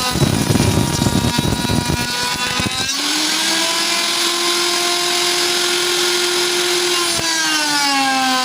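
Electric wood router at work: a rough cutting noise as the bit chews through wood for the first two seconds, then the motor running free with a steady high whine from about three seconds in, its pitch sagging near the end as it takes load again.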